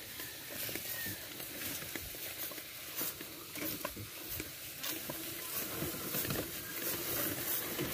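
Irregular squelching footsteps on a wet, muddy track, from a carabao hauling a loaded wooden sled and the person walking behind it.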